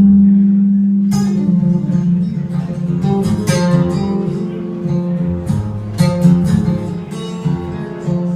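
Acoustic guitar played hard. A low note rings out and fades, then sharp plucked and strummed attacks follow at an uneven, jagged pace, with notes ringing between them.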